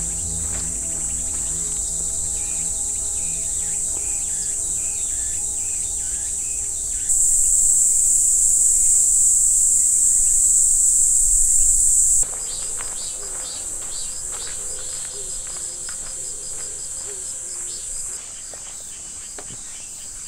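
A steady, high-pitched chorus of insects. It gets abruptly louder about seven seconds in and drops back about five seconds later.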